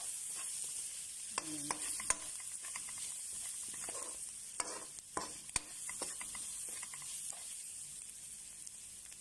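Chopped onion, garlic and ginger with spice powders frying in hot oil in a pan, a steady sizzle, while a spoon stirs them, with sharp clicks and scrapes each time the spoon strikes the pan.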